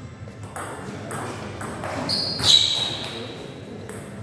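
Table tennis rally: the ball clicking off paddles and the table about every half second. About two and a half seconds in comes the loudest sound, a brief high-pitched squeak that rings on for a moment.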